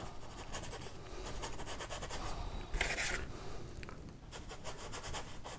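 Paintbrush scrubbing paint onto a stretched canvas in quick short strokes (scumbling): a dry, scratchy rubbing, with one louder scrape about three seconds in.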